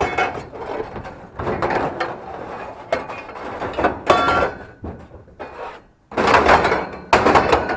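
Scrap items being handled and loaded: a run of irregular clattering, scraping and knocking, with a brief metallic ring about four seconds in and the loudest clatter near the end.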